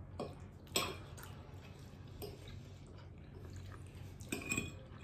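Someone eating saucy pasta: faint wet chewing and mouth sounds, with a few light clicks of a fork against the plate, several in quick succession near the end.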